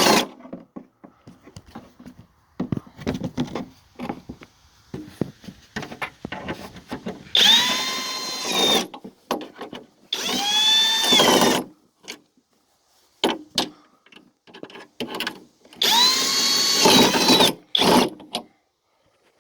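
Cordless drill-driver running three times in bursts of about a second and a half, its pitch rising as each burst starts, driving in the bolts that hold a tailgate latch striker. Light clicks and knocks of handling fall between the bursts.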